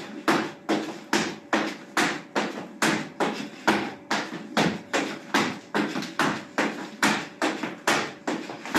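Skipping rope on a tiled floor: a steady beat of sharp slaps as the rope and the jumper's feet strike the tiles, about two and a half hits a second.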